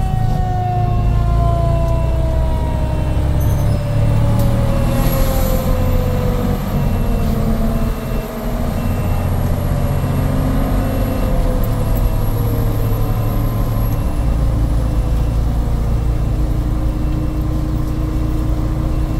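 Fire engine's diesel engine and road noise running steadily, heard from inside the cab while it drives. Over it, a siren tone slowly falls in pitch over the first dozen or so seconds as it winds down.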